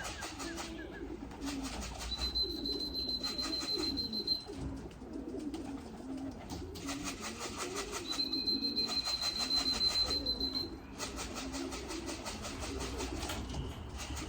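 Pigeons cooing continuously in the loft. Twice, for about two seconds each, a high steady tone sounds over them.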